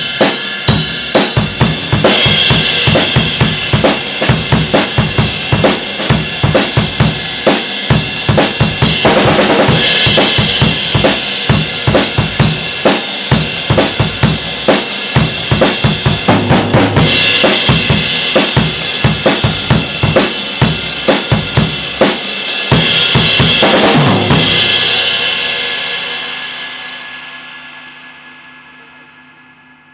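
Drum kit played in a steady groove that features a 20-inch ride cymbal finished from a Turkish blank, with three louder cymbal crashes several seconds apart. The playing stops about 24 seconds in and the cymbals ring on, fading slowly.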